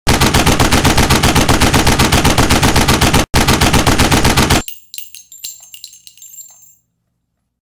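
A rapid, evenly spaced series of very loud bangs, about eight a second, like machine-gun fire, with a very short break a little after three seconds in. The bangs stop abruptly and are followed by a few faint scattered crackles.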